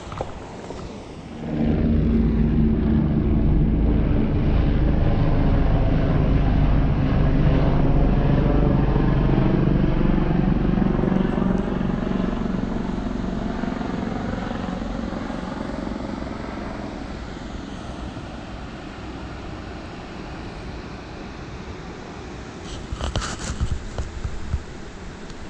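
Propeller aircraft engine droning overhead, coming in loud about a second and a half in and fading slowly away over the second half. A few light clinks near the end.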